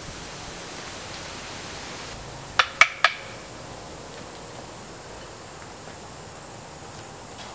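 Steady woodland ambience, an even hiss, with three sharp clicks in quick succession about two and a half seconds in.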